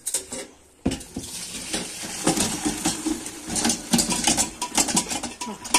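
Metal pot and strainer clattering as boiled pine cones and their cooking water are poured off through a strainer. A hard knock about a second in, then a steady rush of pouring liquid dotted with many clinks and knocks.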